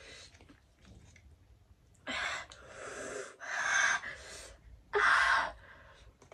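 A woman gasping and panting hard through her open mouth: four breathy rushes of air in the second half, the loudest near the end. These are the reactions of a mouth burning from an extremely spicy chili chip.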